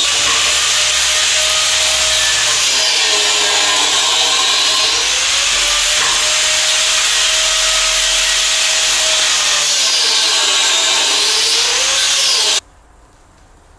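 Electric power saw cutting wood, its motor pitch sagging under load and recovering several times, then stopping abruptly near the end.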